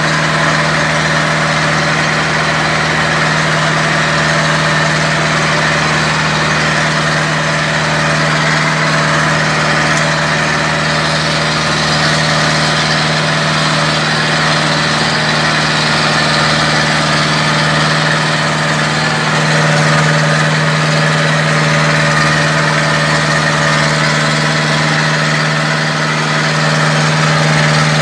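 Zetor tractor's diesel engine running steadily as the tractor drives along, heard from inside the cab. It gets a little louder about twenty seconds in and again near the end.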